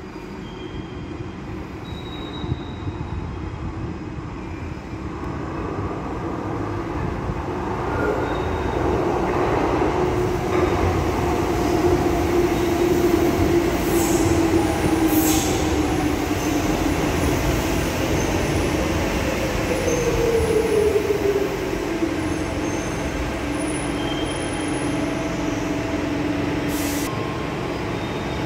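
Docklands Light Railway electric train arriving at the platform: its running noise builds as it comes in, and a motor whine falls in pitch as it brakes to a stop. It then stands with a steady, quieter hum.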